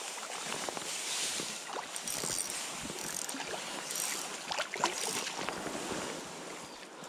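Hooked chub splashing and thrashing at the surface as it is drawn in to the bank, a run of irregular wet slaps and splashes over running river water, the loudest a little before and around five seconds in.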